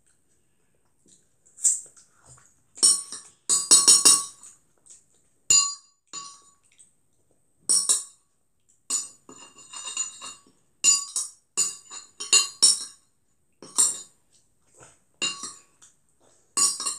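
Metal fork clinking against a plate while noodles are gathered up: short ringing clinks at irregular intervals, about one a second, with a quick cluster of them about three to four seconds in.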